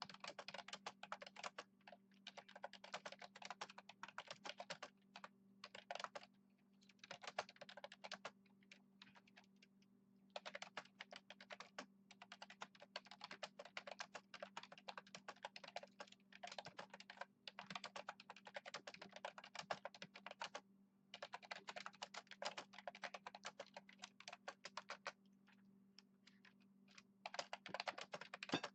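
Typing on a computer keyboard in quick runs of keystrokes broken by short pauses, over a faint steady hum.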